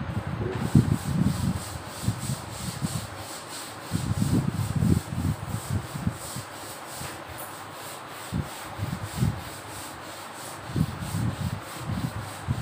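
Blackboard duster wiping chalk off a chalkboard in quick back-and-forth strokes: a steady rubbing scrape, with dull low bumps now and then.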